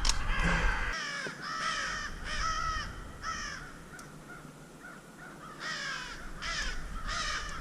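Crows cawing: a run of about five harsh caws, a short pause, then three more.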